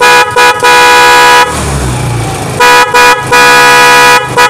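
A pair of motorcycle electric horns sounding together: two short toots and a long blast, then after about a second's pause two short toots and a long blast again. Between the blasts the motorcycle rickshaw's engine is idling.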